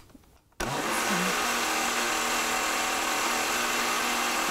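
Countertop blender switched on about half a second in and running steadily, pureeing strawberries with sugar and water.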